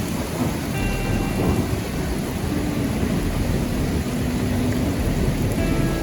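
Heavy wind-driven rain pouring down in a storm, a steady dense hiss over a low rumble, with faint whistle-like tones coming and going.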